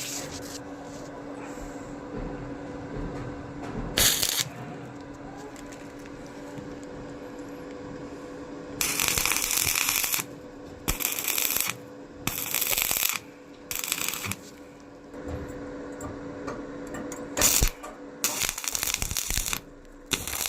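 Welding arc crackling in short bursts of about a second each, a series of them starting about nine seconds in, over a steady machine hum.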